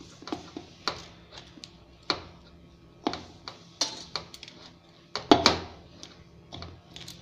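Hands mixing flour dough in a steel bowl: irregular sharp clicks and knocks of bangles and fingers against the metal, the loudest knock about five seconds in.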